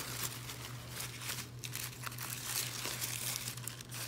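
Packing wrap crinkling and rustling as it is pulled open by hand, with a steady low hum underneath.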